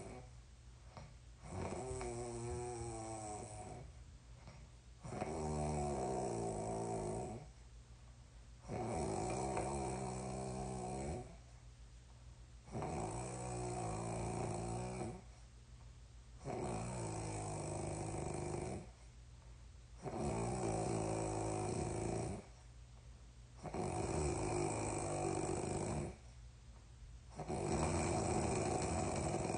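A sleeping person snoring, one snore about every three and a half seconds, each lasting about two seconds, eight in all.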